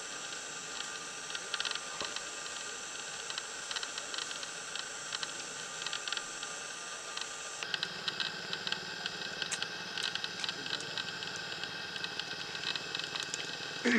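Steady outdoor background noise: a high hiss laced with steady high tones and many short, faint ticks or chirps. The background changes abruptly about eight seconds in.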